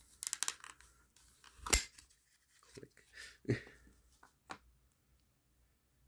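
Zippo lighter being lifted out of its fitted presentation box: a run of light scrapes and rustles, one sharp click about two seconds in, then a few softer knocks.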